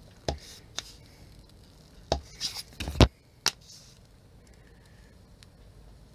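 A handheld leatherworking tool knocking and tapping on leather laid on a cutting mat: a scattering of sharp taps, with the heaviest knock about three seconds in.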